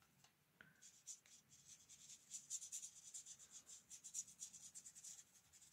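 Faint soft scratching of a watercolour brush stroking across paper, a run of quick short strokes starting about a second in.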